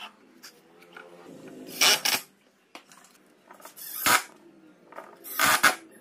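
Cordless drill driving screws into the corners of a pine frame in three short, loud bursts about two seconds apart, with scattered knocks and clicks of the boards being handled on a plywood workbench between them.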